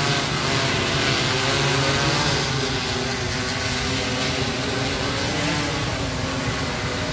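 Multirotor spraying drone in flight, its propellers giving a steady hum of several tones that waver slightly in pitch over a constant hiss.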